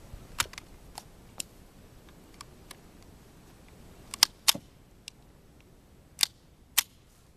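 Sharp metallic clicks and clacks of a Charter Arms Explorer II .22 semi-automatic pistol being handled to clear a jam, a spent case that failed to eject and is stuck in the chamber. About seven separate clicks, the loudest a close pair about four seconds in.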